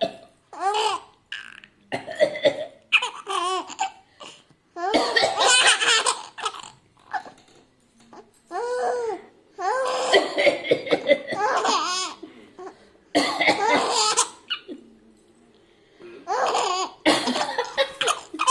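A person coughing again and again while a small child laughs out loud in bursts between the coughs.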